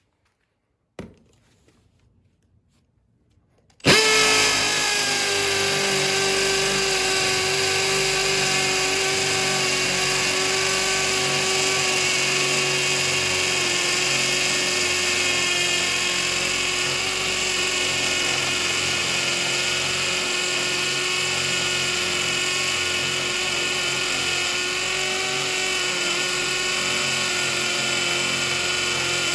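Milwaukee M18 FUEL cordless hammer drill starting nearly four seconds in and running steadily under load with a steady whine, boring a 7/8-inch carbide hammer drill bit into concrete block. A single short click comes about a second in, before the drill starts.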